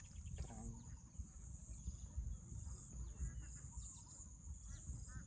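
Steady high-pitched drone of insects in the countryside, with a low rumble underneath and a few faint bird chirps.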